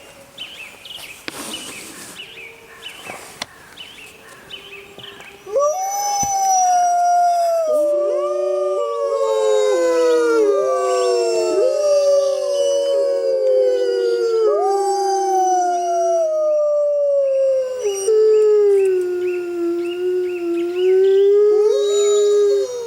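A wolf pack chorus-howling: several overlapping long howls, each starting high and sliding down in pitch, with higher calls over them. It swells in about five seconds in, after a quieter stretch of short calls.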